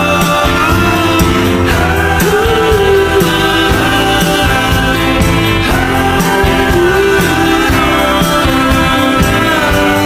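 Background music with a singing voice, steady and loud.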